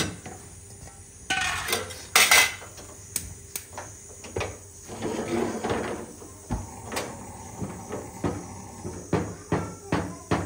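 Wooden paddle stirring and beating dhido, a thick flour porridge, in an aluminium pot, knocking and scraping against the pot's sides. There is a louder clatter about two seconds in and a quicker run of knocks near the end.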